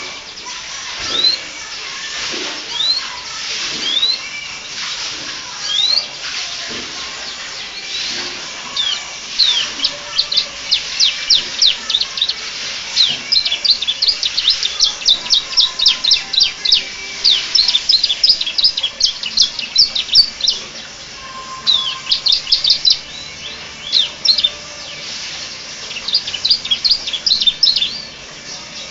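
Domestic canary singing with phrases in the style of the bar-winged prinia (ciblek). It starts with single rising chirps about a second apart, then breaks into fast runs of sharp, high sweeping notes, many per second, with short pauses between runs.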